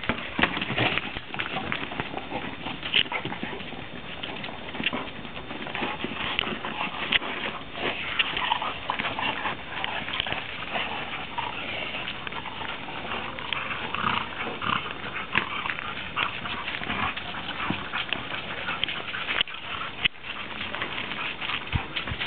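Dogs playing rough together over a ball: dog noises mixed with scuffling, in many short irregular sounds.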